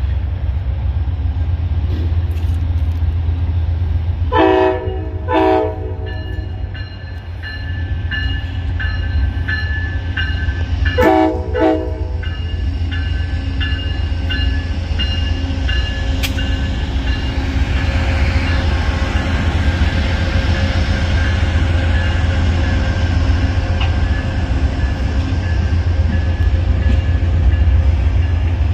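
Amtrak GE P42DC diesel locomotive passing close by with its engine rumbling. It sounds its horn in two pairs of short blasts, about four seconds in and again about eleven seconds in, and its bell rings. Near the end the bi-level passenger cars roll past, their wheels clattering on the rails.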